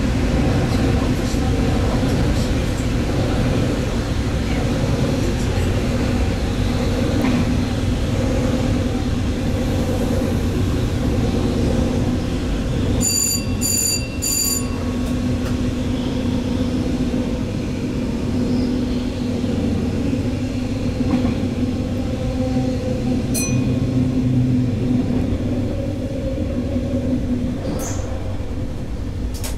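Stadler GTW 2/6 diesel multiple unit running at speed, heard from the driver's cab: a steady rumble of engine and wheels on the rails with an even hum. About halfway through, three short electronic beeps sound in quick succession.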